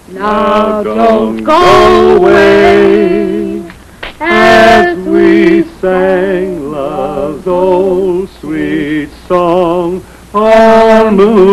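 People singing a slow song in held, wavering notes, in short phrases with brief breaks between them.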